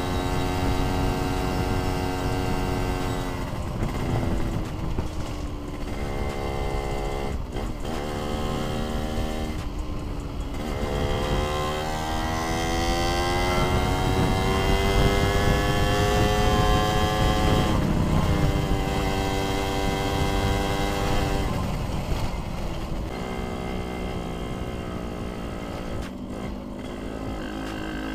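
Suzuki Satria 120 two-stroke single-cylinder engine under way, shifting up three times in the first ten seconds, then climbing slowly in pitch for about eight seconds before another shift and easing off, with wind rumble on the microphone. The rider finds this engine short of power and gasping on climbs.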